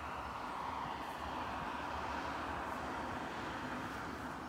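Faint, steady rushing noise of distant vehicles, swelling slightly over the first couple of seconds and then easing.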